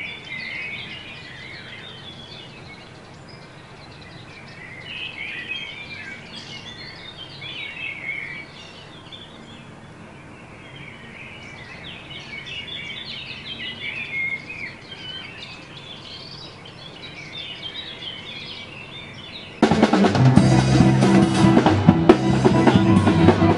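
Many small birds chirping over a quiet, steady background. Near the end it cuts suddenly to loud music with a drum kit and bass.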